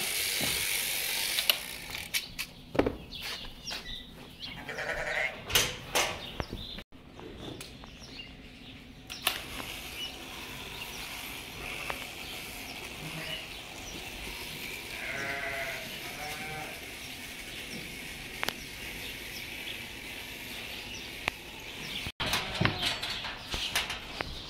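Sheep bleating, with one wavering call a little past the middle, among scattered knocks and clatter over a steady hiss.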